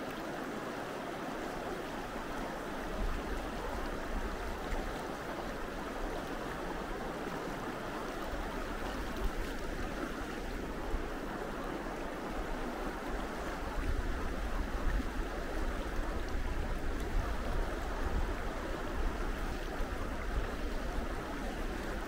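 The Gallatin River flowing, a steady rush of moving water. A low rumble comes and goes beneath it from about three seconds in, heaviest in the second half.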